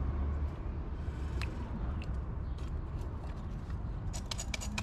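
Caulking gun being handled while a fresh tube of caulk is loaded: a few scattered clicks, then a quick run of clicks near the end, over a steady low rumble.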